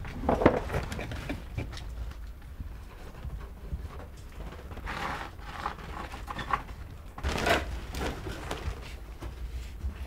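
Scattered rustling and light knocks of people clambering over rock and handling a bat hand net in a cave, with two louder rustles about five and seven and a half seconds in, over a steady low rumble.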